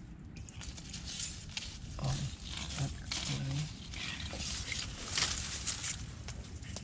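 Wet mud squelching and sucking, with leaf litter rustling, as a rod and hand probe a flooded mud crab burrow in mangrove mud. A few short low gurgling sounds come about two seconds in and again around three and a half seconds.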